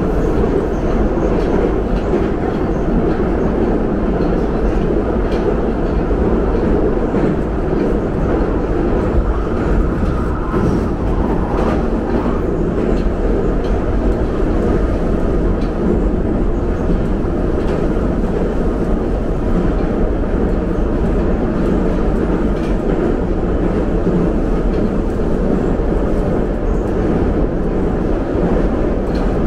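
St. Petersburg metro train running, heard from inside the passenger car: a loud, steady rumble of wheels on rails that never lets up.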